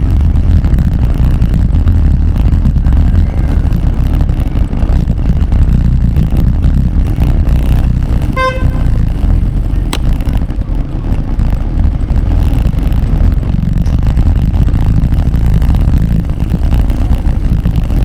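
A steady, loud low rumble, with a single short beep or horn toot about eight and a half seconds in.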